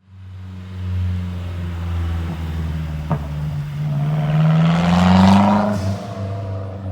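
Mazdaspeed3's turbocharged 2.3-litre four-cylinder, exhaust with the resonator and second catalytic converter removed, idling, then revved once, rising for about two seconds and dropping back to idle near the end. A single sharp tap is heard about three seconds in.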